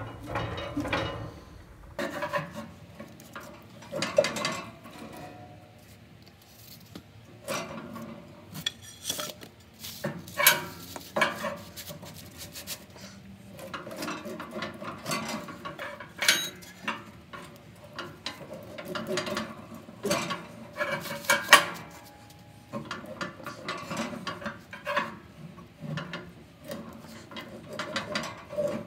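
Heavy steel door of a Gardall depository safe being worked back and forth on its stiff, rusted hinges: irregular metallic scraping, creaking and knocks as the binding hinge slowly gives.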